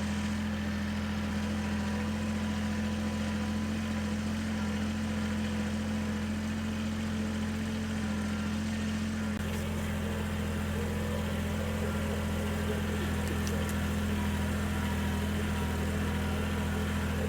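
Small vehicle engine running steadily at a constant speed, a low even hum; its note shifts slightly about nine seconds in.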